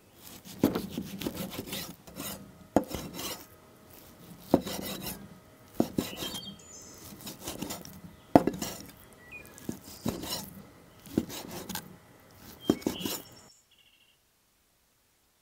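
Knife strokes cutting through food on a wooden cutting board: a short scrape ending in a knock, about one a second. They stop abruptly a couple of seconds before the end, leaving faint bird chirps.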